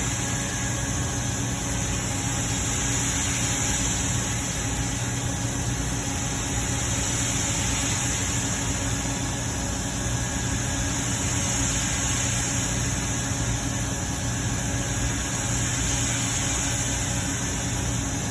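Steady background hum and hiss with no distinct events, at an even level.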